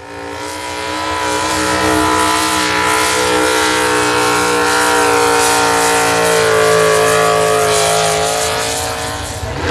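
A pro stock mini pickup truck's engine running flat out under heavy load as it pulls a weight sled down the track. The loud engine note cuts in abruptly, holds steady at high revs and sags slightly near the end.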